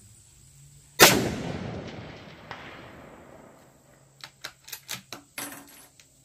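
Single rifle shot: a sharp crack about a second in with a long rolling echo that fades over about two seconds. A faint knock about a second and a half later is the bullet striking the steel plate at 400 yards. Near the end comes a quick run of short, sharp clicks and clacks.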